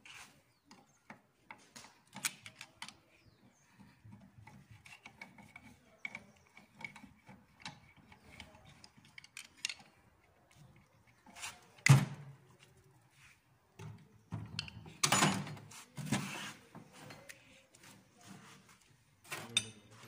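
Hand tools working on a bare car engine block: a wrench turning bolts and metal parts being handled, with scattered clicks and scraping. There is one sharp metal clank about twelve seconds in, and a louder stretch of rubbing and knocking a few seconds later.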